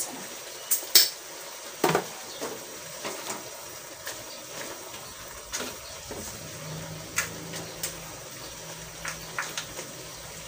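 A wooden spoon stirring crab and shrimp in an aluminium pot, with scattered clacks and knocks against the pot. The loudest come about one and two seconds in.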